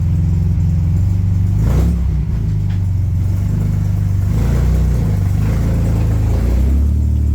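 1938 SS Jaguar 3½ Litre's straight-six engine pulling the car away and accelerating, its low engine note shifting in pitch with a brief break about two seconds in.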